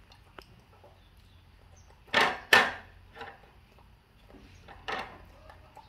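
Two loud, short knocks close together about two seconds in, followed by a few fainter knocks.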